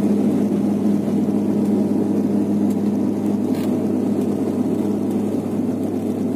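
Cabin noise of a Bombardier Q400 turboprop airliner climbing after takeoff: a steady engine and propeller drone with a low hum, which weakens slightly about five seconds in.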